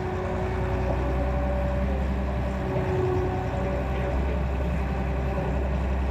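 Excavator's diesel engine running steadily with a low drone, and fainter wavering higher tones over it.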